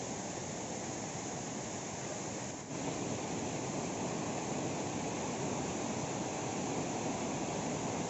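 Steady rushing of a rocky stream flowing over stones. It dips briefly about three seconds in and comes back a little louder.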